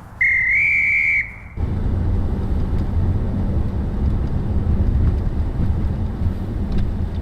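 A shrill whistle blast lasting about a second, its pitch rising slightly, followed a moment later by a steady low rumble.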